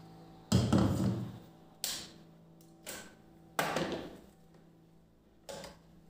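About five knocks and clatters as a mixer-grinder jar is lifted off its motor base and handled on a kitchen counter; the first, about half a second in, is the loudest, with another cluster around two-thirds of the way through.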